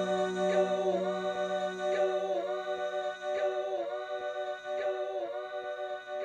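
Background music of held, choir-like vocal chords that dip in pitch together about every second and a half, with a low held note underneath that fades out about halfway through.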